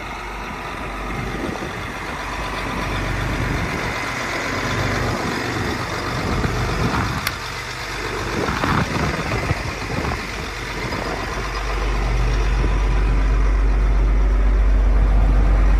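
John Deere 8760 articulated tractor's diesel engine idling, with wind gusting on the microphone. A sharp click about seven seconds in as the cab door is opened, and from about twelve seconds in the engine is a steady, louder low drone heard from inside the cab.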